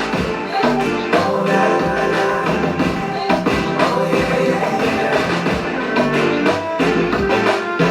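Pop song playing, with a steady drum beat, a pulsing bass line and sustained melodic notes.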